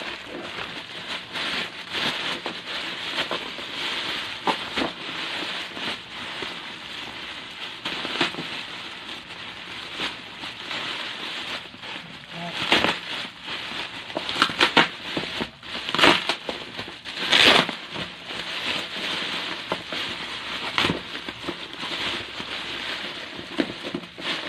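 Plastic packaging crinkling and rustling as it is handled and unwrapped, with irregular crackles throughout and several louder ones about halfway through.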